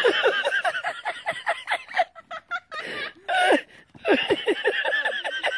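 A person laughing hard in quick repeated ha-ha bursts, breaking off briefly twice.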